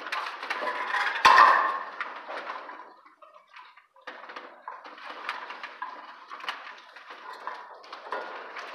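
Electrical wires being pulled through conduits and handled at a metal distribution board: irregular scraping, rustling and small clicks, with a sharp knock about a second in and a short lull near the middle.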